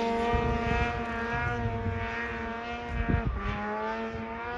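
Snowmobile engine running at steady high revs. Its pitch dips briefly about three seconds in and then climbs back.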